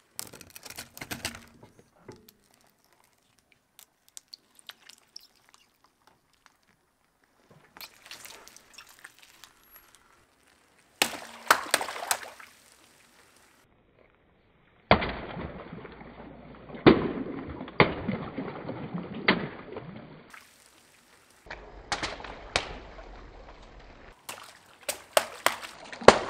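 A car tyre rolls over and crushes water balloons, which burst one after another with sharp pops and water splashing onto the pavement. The crushes come as several separate short takes, the loudest bursts falling in the middle and near the end.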